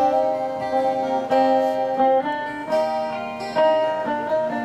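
Live folk band playing an instrumental passage between verses, with no singing. An acoustic guitar is strummed under a plucked-string melody line of held notes that step from pitch to pitch.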